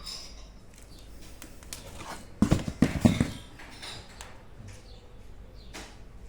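Metal parts clinking and knocking as they are handled, with a cluster of loud knocks about two and a half to three seconds in. Birds chirp faintly in the background.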